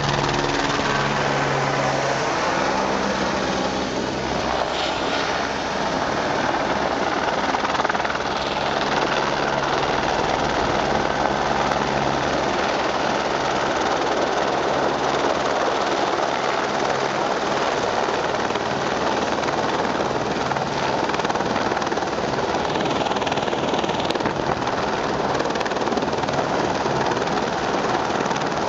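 Eurocopter Écureuil light helicopter close by, flying in with a water bucket slung beneath it and hovering low over a swimming pool: loud, steady rotor and engine noise, with a low hum in the first few seconds.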